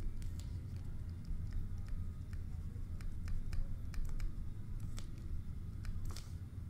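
A stylus tapping and stroking on a tablet's writing surface during handwriting: a run of light, irregular clicks, with a slightly longer scratch near the end, over a steady low hum.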